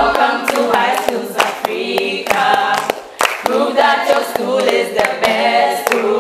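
Jingle of a group of voices singing together, with sharp hand claps keeping time.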